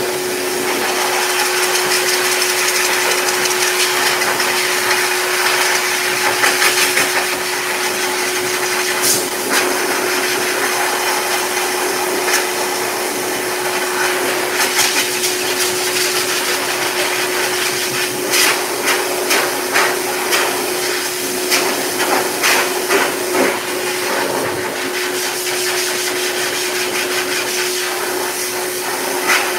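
K9 heavy-duty dog dryer running: a steady rush of air from the hose nozzle over a constant motor hum. From about halfway through, short sharp knocks, about two a second, sound over it.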